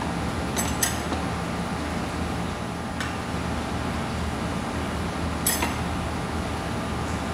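Teaware clinking: a teapot and ceramic rice bowl knock lightly a couple of times about a second in, a faint click near three seconds, and another clink about five and a half seconds in as the teapot is set down. A steady air-conditioning hum runs underneath.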